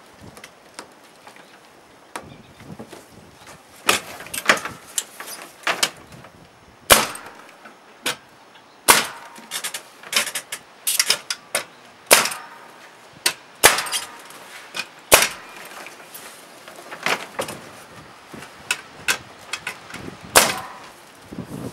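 Pneumatic nail gun firing nails into timber: a run of sharp shots at irregular intervals, starting about four seconds in, with a few fainter knocks before.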